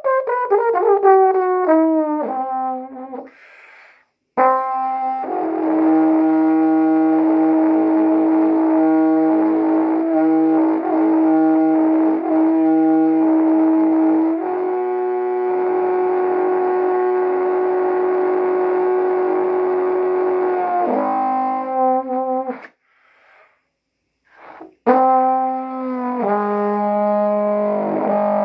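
Solo trombone improvising a slow blues. A run of notes falls at the start, then after a short pause come long held notes, a brief break a few seconds before the end, and more notes.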